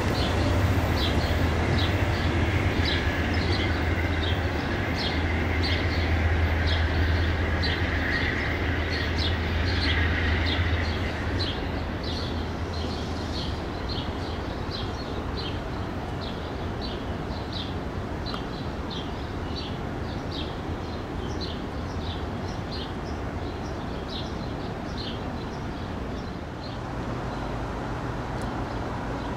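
Amtrak passenger train of stainless-steel coaches pulling away along the tracks, its low rumble fading away about eleven seconds in. A regular high chirping, about two a second, carries on underneath.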